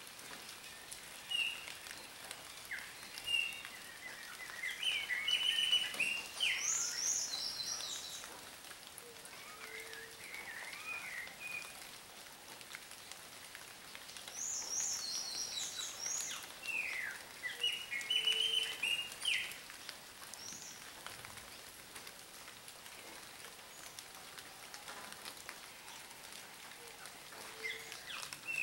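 A songbird singing two long bouts of varied chirps, quick rising and falling notes and short trills, about ten seconds apart, over the steady patter of rain.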